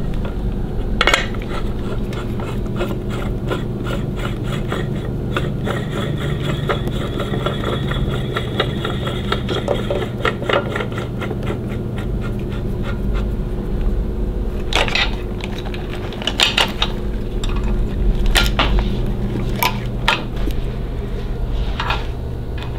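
Metal motorcycle front-end parts being handled and fitted by hand: clinking, scraping and rubbing, with a sharp knock about a second in and several more between about 15 and 20 seconds, over a steady low hum.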